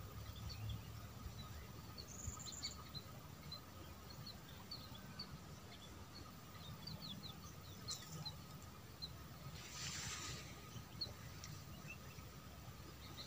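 Quiet riverside ambience: small birds chirping now and then in short high notes over a faint steady tone, with a brief hiss about ten seconds in.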